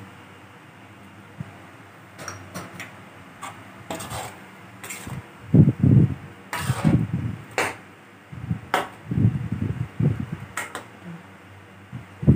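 A metal ladle stirring and scraping curry in an aluminium wok, with scattered clinks against the pan, over a steady fan whir.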